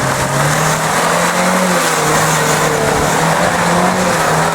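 A 4x4's engine revving off-road, its pitch climbing over the first second and a half, dropping, then wavering up and down with the throttle.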